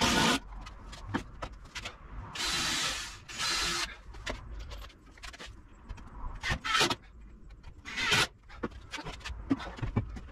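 Cordless drill-driver running in two short bursts, driving screws to fix timber legs onto a wooden frame, followed by scattered knocks and clatter of wood and tool being handled.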